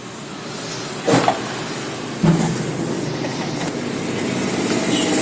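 Polishing work on the aluminium magneto cover of a Honda C70 engine: a steady rough rubbing noise that grows louder, with a short knock about a second in and another about two seconds in.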